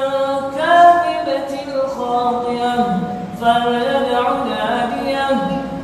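An imam's voice reciting the Quran aloud in Arabic, chanted melodically with long held notes, in phrases broken by short pauses for breath.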